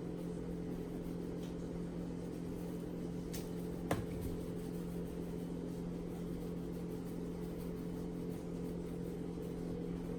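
Steady low hum of a running kitchen appliance, with one sharp click about four seconds in and a fainter click just before it.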